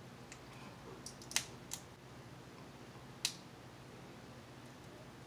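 Eating noises from seafood being picked and chewed: a few short, sharp clicks and cracks, the loudest about a second and a half in and again past three seconds, over a faint steady hum.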